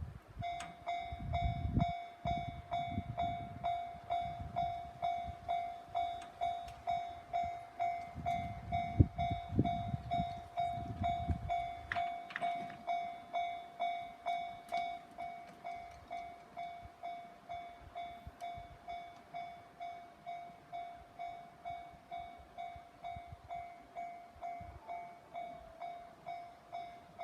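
Japanese railway level-crossing alarm ringing, a repeated electronic bell tone at about two strikes a second. A train passes through the crossing for the first dozen seconds, with a low rumble and clicks of wheels over rail joints, and the alarm keeps ringing after the train is gone.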